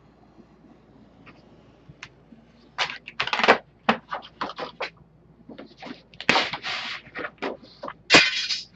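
Stiff pattern card being handled on a tabletop: sheets of card stock scraping and rustling as they are slid, lifted and laid down. The sounds come in short, uneven strokes from about three seconds in, loudest near the start of that run and again near the end.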